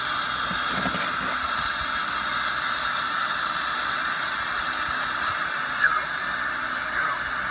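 Steady road and wind noise inside a moving car's cabin, an even hiss, with a brief knock about six seconds in.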